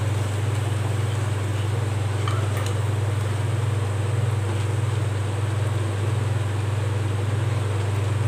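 A steady low hum with fan-like noise from an electric glass-top cooktop, under sugar syrup bubbling at the boil as a wooden spatula stirs it through the pan. The syrup is being boiled down toward a sticky consistency.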